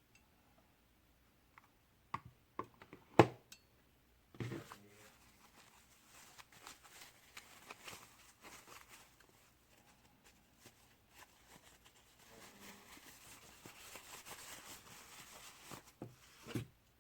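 Small objects being handled close up. There are several sharp clicks, the loudest about three seconds in, then about twelve seconds of soft rustling and scraping with light clicks in it.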